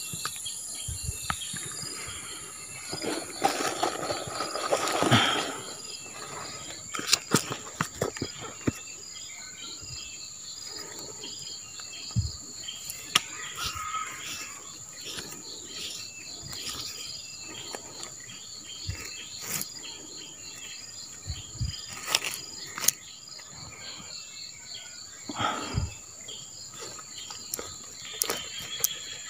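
A chorus of insects: one continuous high whine, with a rapid pulsing trill below it. Scattered clicks, knocks and rustles from handling close by, most dense about three to six seconds in.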